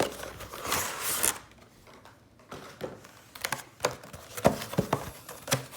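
Packaging of a trading-card box being handled: a crinkle of plastic in the first second or so, then a short lull, then scattered light taps and clicks.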